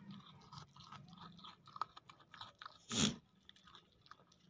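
A goat kid chewing and crunching pieces of watermelon, a run of small wet crunches and clicks. There is one short, louder burst about three seconds in.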